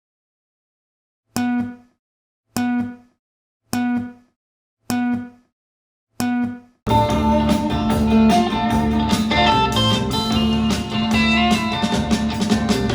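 Test music played back through an Audiocircle Berlin car component speaker set (midbass and tweeter). After about a second of silence come five identical short plucked-string notes about 1.2 seconds apart, then guitar and drums come in about seven seconds in.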